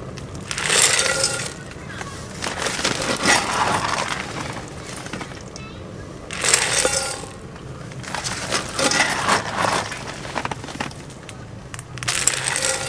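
Hard wood pellets clattering in about five bursts as they are scooped and poured into a pellet stove's hopper.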